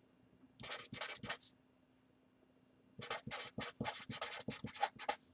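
Felt-tip marker writing on paper: quick, scratchy strokes in two runs, a short one just after the start and a longer one from about three seconds in.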